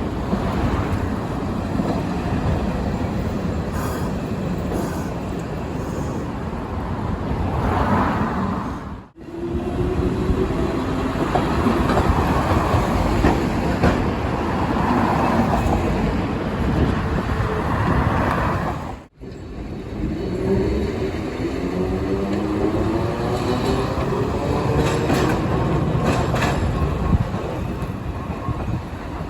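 Electric trains running along the rails, with the traction motors' whine climbing in pitch as they speed up. The sound breaks off abruptly twice, joining three separate passes.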